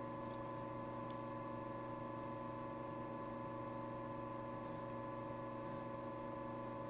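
Steady electrical hum of an egg incubator's fan motor, several held tones with no change, and a faint tick about a second in.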